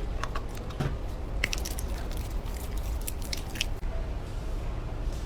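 Slime being squished and worked by hand: a run of small wet pops and crackles, thickest in the middle, over a steady low rumble.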